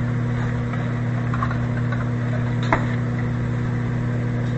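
Microwave oven running with a steady low hum while it heats a frozen patty; a single short click about two and a half seconds in.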